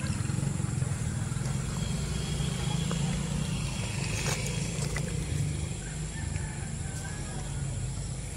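Hino F17 V8 diesel engine of a 12-wheeler boom truck idling steadily, a low even rumble.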